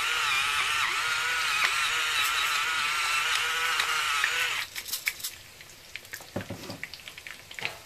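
Small electric pepper grinder running, its motor whine wavering in pitch, then cutting off about four and a half seconds in; a few light clicks and knocks follow.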